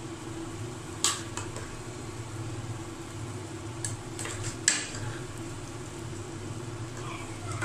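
A ladle knocks against an aluminium pressure cooker a few times as boiled lentils are ladled in. The two loudest clinks come about a second in and just past the middle, over a steady low hum.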